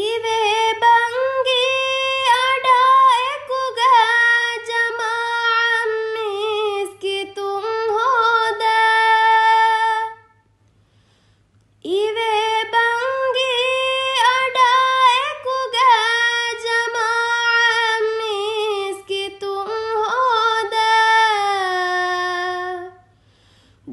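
One high female voice singing a melody without accompaniment, in two long phrases with a pause of about two seconds near the middle. A faint low hum runs underneath.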